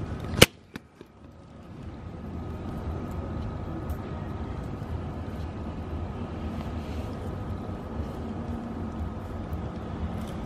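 A single sharp knock about half a second in, as the camera is set down on the workbench, then a steady low rumble of background noise.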